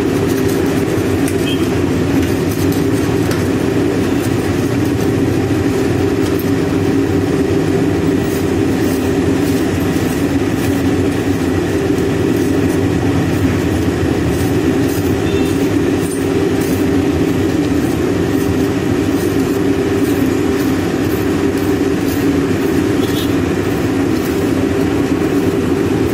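Diesel engine of a Manitou TLB 844S backhoe loader running steadily at constant speed, a loud even drone with no change in pitch.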